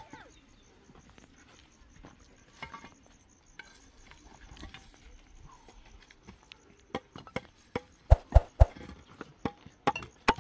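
Scattered knocks and taps, with a few heavy thuds in quick succession about eight seconds in.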